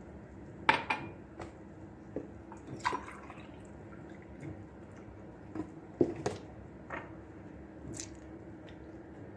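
Milk being poured over a chocolate sponge cake and soaking in: scattered drips and small splashes, the sharpest about a second in and around six seconds, over a steady low hum.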